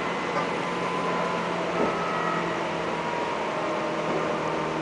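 Steady running noise inside the passenger cabin of a Seibu 10000 series limited express train at speed: an even rumble and hum with no sudden knocks.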